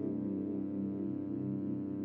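Ambient background music of sustained, gently pulsing tones.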